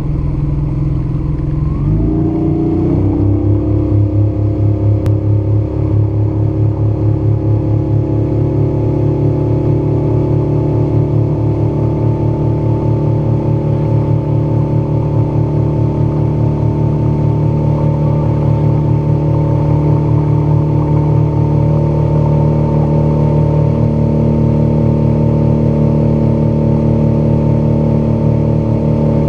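Outboard motor throttling up about two seconds in, its pitch rising, then running steadily at cruising speed as it pushes the boat along.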